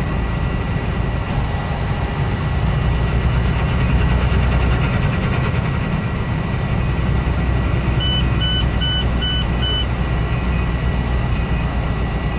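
Steady low rumble of a truck's engine and road noise inside the cab while driving at highway speed. About eight seconds in, an electronic alert gives five short, evenly spaced beeps.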